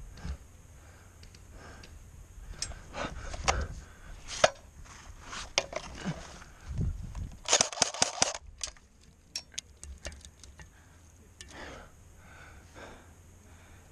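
Airsoft guns firing: scattered sharp clacks, with a fast burst of about eight or nine clacks about halfway through.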